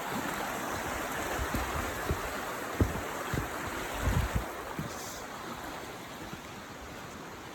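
Rushing river water, a steady rush, with a few low thumps around the middle. The rush gets a little quieter in the second half.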